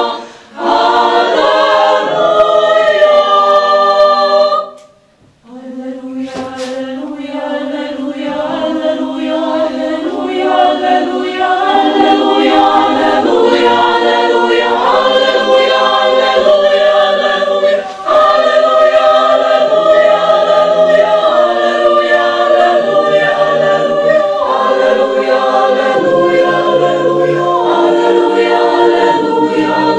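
A choir singing in harmony, holding long notes that change every second or so, with a short break about five seconds in before the singing resumes.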